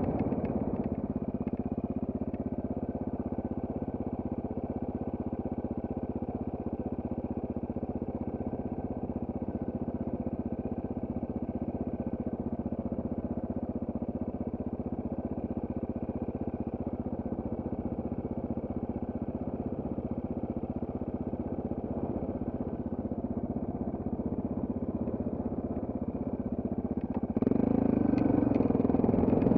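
Trail motorcycle engine running steadily at an even pitch. About three seconds before the end it gets louder as the revs pick up.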